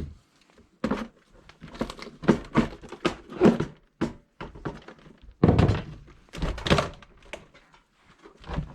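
Irregular knocks and thunks of hard plastic parts and tools being handled during the teardown of a toy oven, a dozen or more sharp hits spread over several seconds.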